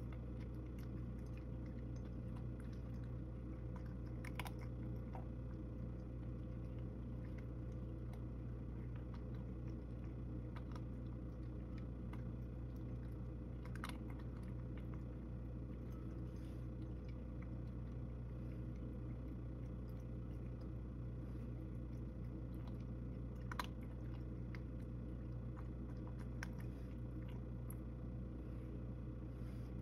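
A cat eating from a ceramic bowl: quiet, continuous chewing and crunching with many small clicks and a few sharper ones, over a constant low hum.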